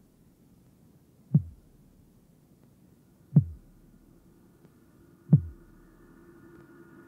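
Three slow, deep thuds from a power electronics noise track, two seconds apart, each dropping in pitch like a heartbeat, over a faint low hum. A held droning tone starts to fade in near the end.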